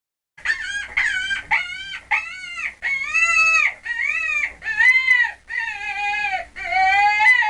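Chicken calling: a quick string of about nine loud, pitched calls, each rising and falling in pitch, the later ones longer and held.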